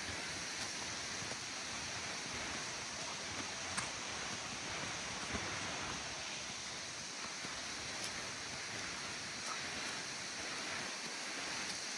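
Steady rush of a mountain stream running over rocks, with a couple of faint clicks.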